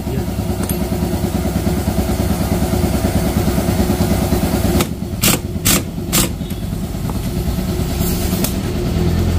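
Small motorcycle engine idling steadily, with four short, sharp bursts of noise about five seconds in and a brief hiss about eight seconds in.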